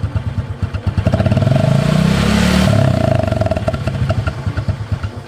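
Honda Supra X 125 motorcycle's single-cylinder four-stroke engine idling with an even putter, revved up about a second in and let back down to idle near the middle, its exhaust muffled by a container held over the tailpipe outlet. A steady ringing tone rides on top while the engine is revved.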